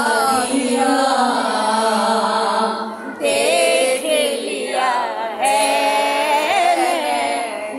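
A woman singing a slow devotional chant unaccompanied, with long held, wavering notes and two short breaks for breath.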